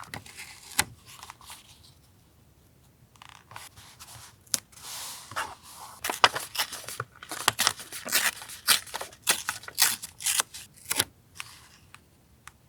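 Paper collage work: paper handled and cut with scissors. After a quiet stretch about two seconds in, a soft swish of paper comes, then a quick run of crisp snips and clicks in the second half.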